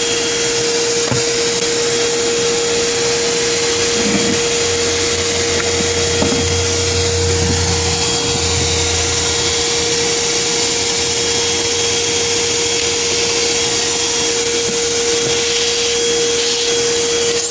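A motor-driven machine running steadily: a constant whine over a loud rushing hiss. A low hum joins for a few seconds about five seconds in.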